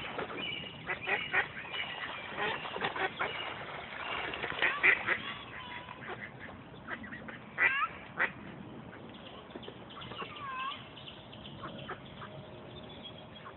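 Ducks quacking, many short calls close together in the first five seconds, then fewer and more spread out, with a couple of drawn-out calls that bend in pitch later on.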